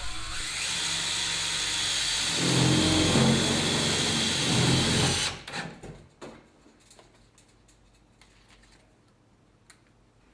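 Cordless drill driving a self-drilling screw: the drill runs for about five seconds, getting louder and lower about two seconds in as the screw bites and tightens, then stops. A few faint clicks follow.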